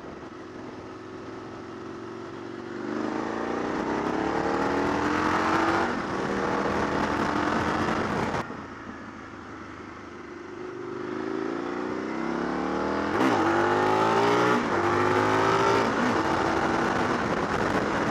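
Motorcycle engine accelerating through the gears, its pitch rising and then stepping down at each upshift. The engine note drops away suddenly about eight and a half seconds in as the throttle closes. It then pulls up through the gears again.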